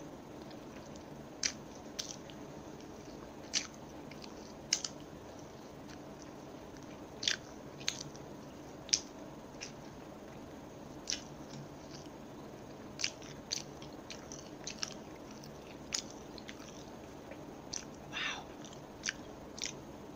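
Close-miked bites and chewing of a brown-bread sandwich: irregular sharp, crisp crunches about a second apart, over a steady faint hiss.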